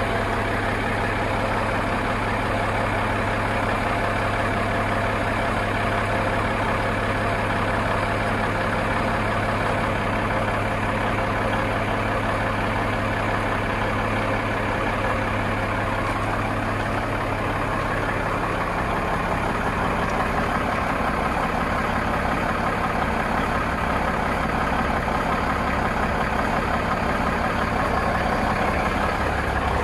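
Big Cam Cummins inline-six diesel in a 1989 Peterbilt 379 idling steadily. Its low note shifts about two-thirds of the way through.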